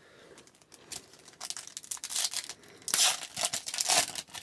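A trading-card pack wrapper is being torn open and crinkled by hand. The crackling rustle comes in several bursts and is loudest in the second half.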